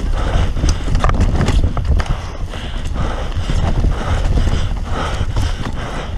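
Mountain bike riding fast down a dirt trail: tyre noise and the bike rattling and clattering over bumps, with many sharp knocks, over a steady low rumble picked up by the bike-mounted camera.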